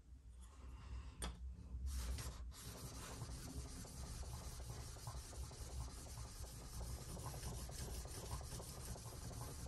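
Steel plane iron from a rabbeting block plane rubbed back and forth flat on a 40-micron sharpening plate: a steady gritty scraping as the back of the blade is flattened and polished. The scraping sets in about two seconds in, after a couple of light clicks.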